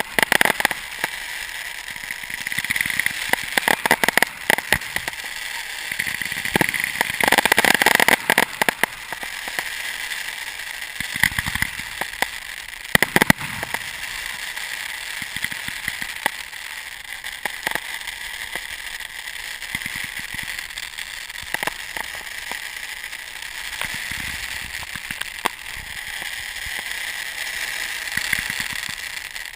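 Fireworks going off: a dense run of crackling and popping for the first nine seconds or so, a few heavier bangs around eleven to thirteen seconds in, then a steadier crackle with scattered pops.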